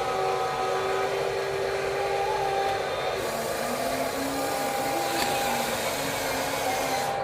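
Whine of the small electric motors and gearboxes of radio-controlled construction models running. The tones step up and down in pitch as the machines' functions are worked.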